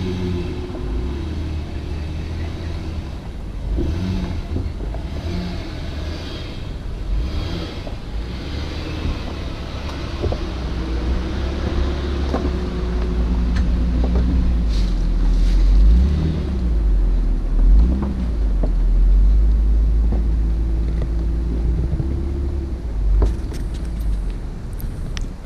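Truck engine running as it drives, its low hum shifting up and down in pitch with the throttle, with road and wind noise over it.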